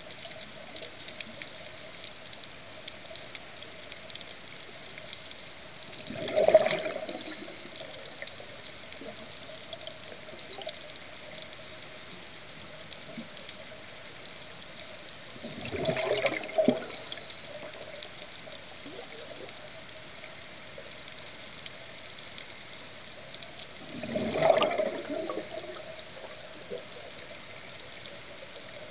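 A scuba diver's exhaled bubbles from the regulator, three bursts of bubbling about eight to nine seconds apart, one per breath, over a steady hum.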